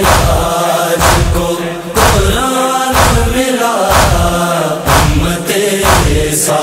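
Urdu nauha for Imam Husain chanted by voices over a deep beat that strikes about once a second.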